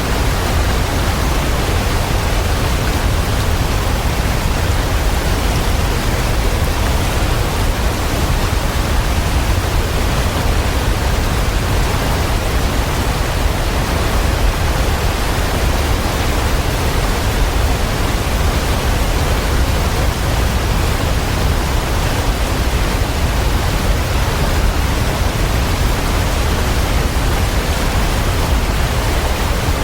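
Waterfall: a steady, unbroken rush of falling water with a deep low rumble beneath it.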